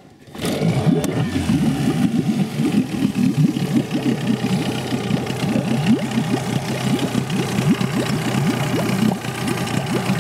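Yamaha 8 CMHS two-stroke, two-cylinder outboard motor pull-started with the throttle grip on the start position: it catches about half a second in and then runs steadily.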